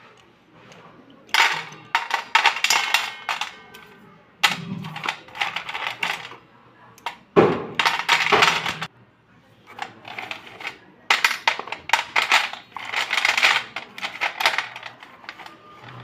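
White slate pencils dropped by the handful onto a stainless steel plate, clattering in several bursts of sharp clinks as they fall and tumble against the metal and each other.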